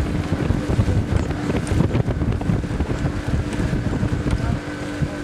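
Wind buffeting the microphone over the steady drone of a river boat's engine.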